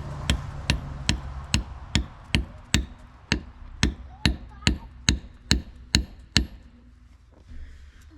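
A big hammer striking metal in a steady run of ringing blows, about two and a half a second, driving a gate hinge pin into a hole drilled in a tree. The blows stop about six and a half seconds in, and a couple of lighter knocks follow near the end.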